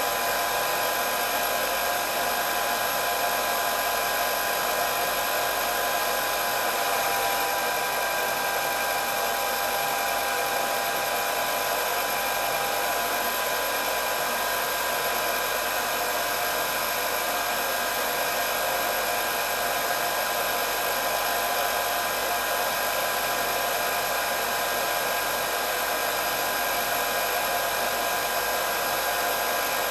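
Hair dryer running steadily: an even rush of blown air with a steady high whine of several tones over it, unchanging throughout.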